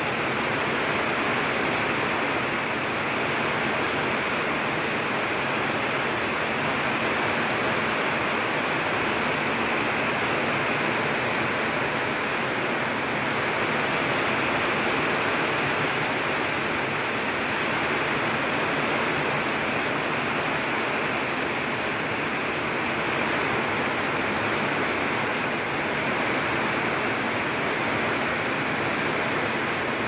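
Heavy typhoon rain pouring down in a steady, even rush that does not let up.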